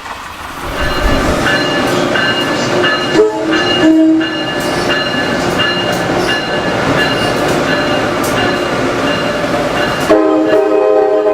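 Passing train's multi-chime air horn sounded as a horn show: a chord of several notes blown in a run of short and longer blasts over the rumble and clickety-clack of the train. At about ten seconds a fuller, lower horn chord starts abruptly.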